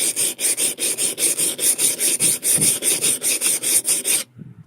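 Steel chisel rubbed rapidly back and forth on the coarse side of a water-lubricated sharpening stone, a gritty scraping at about five strokes a second that stops about four seconds in. The stone is taking metal off the blade.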